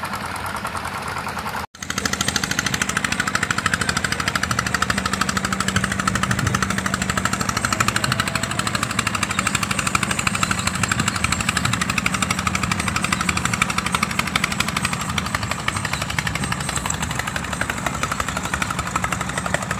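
Small wooden fishing boat engines running with a fast, steady knocking beat. The sound cuts out for an instant about two seconds in, then comes back louder.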